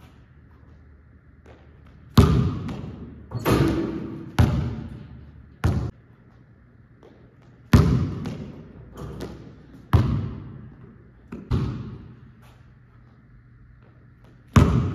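A basketball bouncing hard on a gym floor and hitting the rim and backboard during dunk attempts, with landing thuds. There are about eight loud irregular impacts, each echoing in a large hall.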